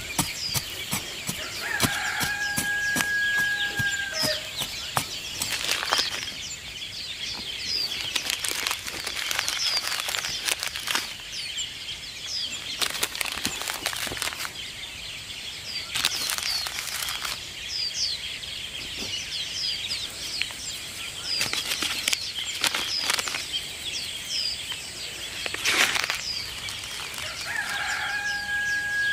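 A rooster crowing twice, a long held call that drops at its end, about two seconds in and again near the end, over the constant quick chirping of small birds. Short rustling and scraping noises come and go in between.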